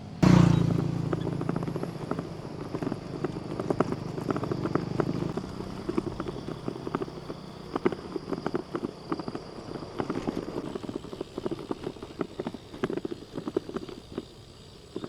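Bicycle riding along a road, with irregular clicks and knocks from the bike rattling over the surface. A low steady hum under it fades out about five seconds in.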